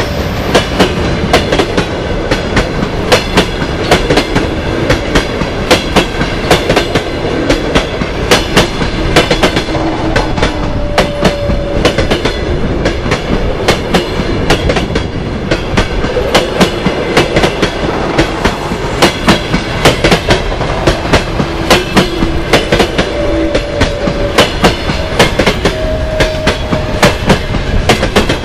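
Passenger coaches of a long-distance train rolling past at close range: steady rolling noise with the wheels clattering in dense clicks over the rail, and now and then a faint whine.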